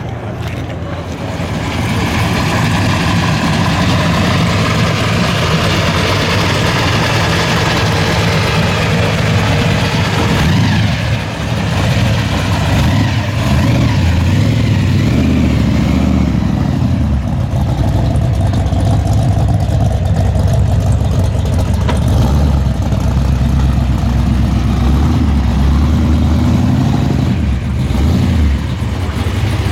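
Muscle car's V8 engine running loudly with a deep exhaust rumble, swelling about two seconds in, dipping briefly about eleven seconds in, then running loud again.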